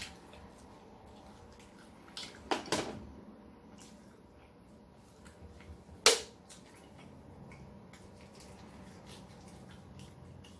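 A couple of clattering knocks about two and a half seconds in, then a single sharp pop about six seconds in as the pull tab of an aluminium drink can is snapped open.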